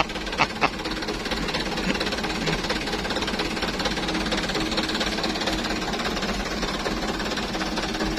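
Truck's diesel engine idling with a steady, rapid clatter.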